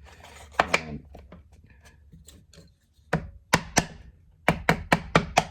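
Sharp wooden knocks and taps as elm box pieces are handled and tapped into place during a dry fit: two knocks just under a second in, then a quick run of sharp taps in the second half.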